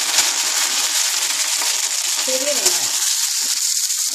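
Curry leaves, mustard seeds and fenugreek frying in hot groundnut oil in a kadai: a steady sizzle with scattered crackles, as in a South Indian tempering.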